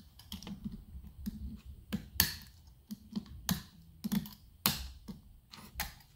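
Hand snips cutting through a thin plastic wall tile: an irregular series of crisp snipping clicks, roughly one or two a second, the loudest a little over two seconds in.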